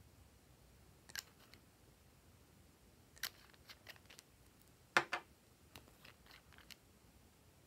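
Sharp clicks and taps of glass nail polish bottles and their caps being handled and screwed. There are a few separate clicks, the loudest about five seconds in, then a run of lighter ticks.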